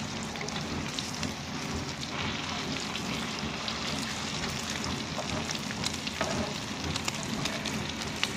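Chicken shami kababs in an egg coating sizzling in hot ghee on a tawa, a steady sizzle with scattered small pops. A spatula clicks against the griddle as the kababs are turned over.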